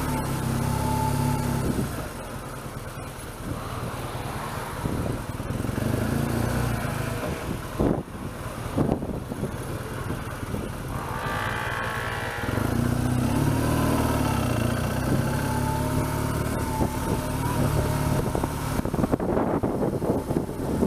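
BMW R1200GS boxer-twin engine running at low speed in slow town traffic. It is quieter through the middle and picks up again about twelve seconds in, with two sharp knocks around eight and nine seconds in.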